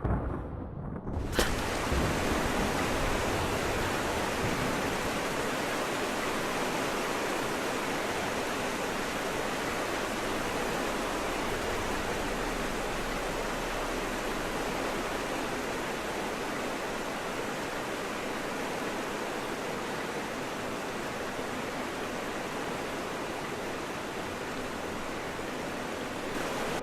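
Steady rushing noise like heavy falling water or rain, swelling in over the first second or so and then holding even.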